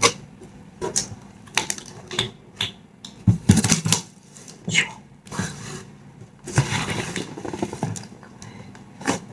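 Cardboard shipping box being opened by hand: a run of sharp crackles and knocks as the flaps are bent back and handled, then longer scraping rustles of cardboard rubbing on cardboard, the longest about six and a half seconds in.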